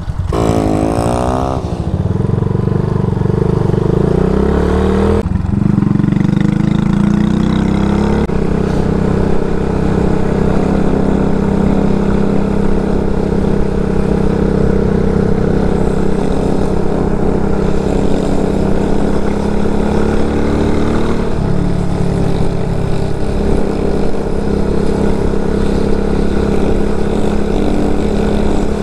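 Single-cylinder four-stroke CG250 engine of an engine-swapped RPS Condor Grom-clone motorcycle under way, climbing in pitch through the gears with shifts about five and eight seconds in, then running at a steady cruise.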